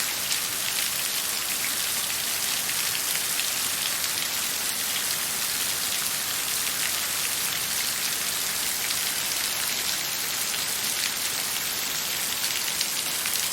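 Steady rain falling, an even hiss of many fine drops pattering on a surface.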